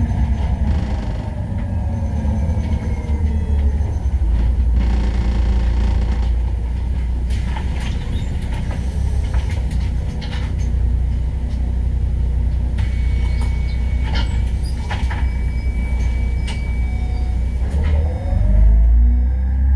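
City bus heard from the driver's cab: engine and drivetrain rumble winding down as the bus slows to a stop, then idling with a few clicks while it stands. Near the end the engine rises in pitch and gets louder as the bus pulls away.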